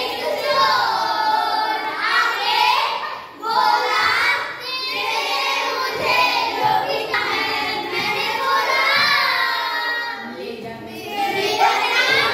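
A group of children singing a song together, with brief breaks between lines.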